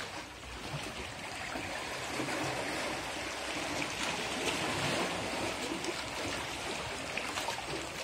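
Shallow seawater washing at the shoreline as a steady rush that swells to a peak about halfway through and then eases off.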